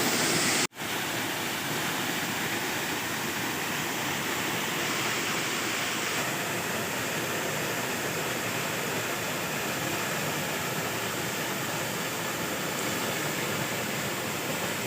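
Small forest waterfall: a steady rush of falling water, broken by a momentary cut-out just under a second in.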